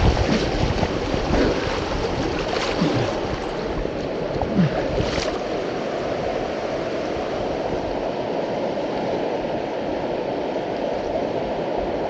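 Whitewater of a river rapid rushing steadily, an even wash of water noise that is a little louder in the first couple of seconds.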